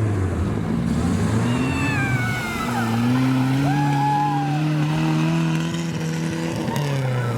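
Off-road tour jeep's engine running under load, its pitch climbing slowly and then dropping sharply near the end, as at a gear change. A few high sliding squeals sound over it about two and four seconds in.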